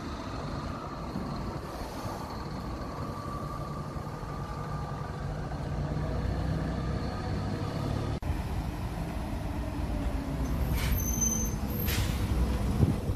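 Diesel bus engines running, growing louder as a bus drives in close by, with two short air-brake hisses near the end.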